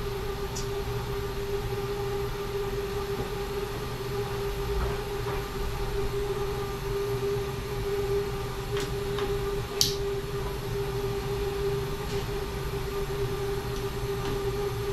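Steady hum of a CNC vertical machining centre sitting at rest with its pumps and fans running, holding one constant tone over a low rumble. A few light clicks and one sharper click about ten seconds in as tooling at the spindle is handled.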